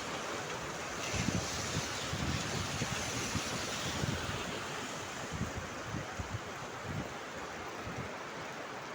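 Heavy rain pouring down: a steady hiss with irregular low thumps, easing slightly in the second half.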